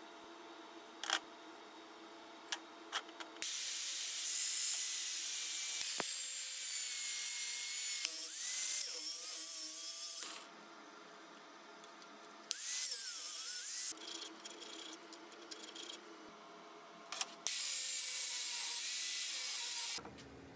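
Angle grinder with a thin cut-off wheel cutting through a stack of thin metal strips: one long cut of about seven seconds, then two shorter bursts with quieter gaps between. A few light clicks come before the first cut.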